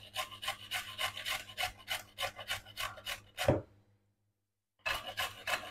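A carrot being grated on a metal box grater: even rasping strokes at about four a second, with one louder short sliding sound near the middle. The strokes break off for about a second, then carry on.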